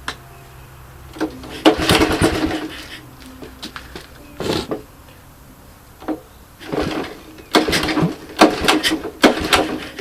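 Recoil pull-starter of a 1981 Honda ATC 185S being yanked about five times in a row, each pull a short rasping burst of cord and engine turning over, without the engine catching yet.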